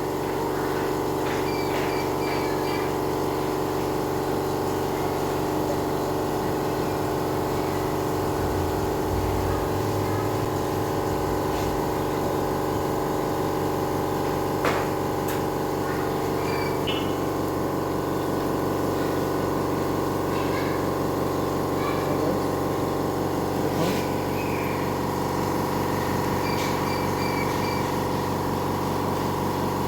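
Bonding machine running with a steady, even hum, with a few faint short high pips and light clicks now and then.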